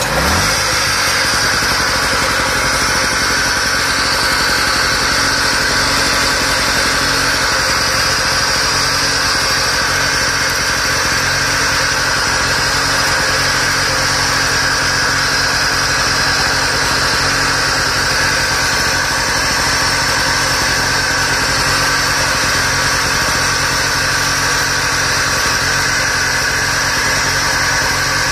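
Suzuki SX800R portable generator's small engine revving up as it catches, then running steadily and evenly while putting out power at its AC outlet.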